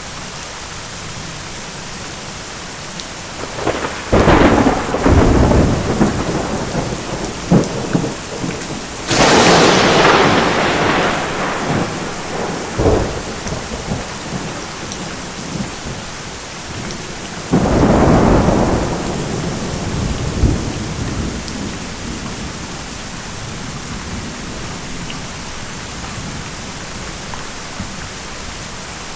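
Steady heavy rain with three peals of thunder, each rolling on for a couple of seconds: the first about four seconds in, the second, the loudest and sharpest crack, near nine seconds, and the third around eighteen seconds. Only the steady rain in the last third.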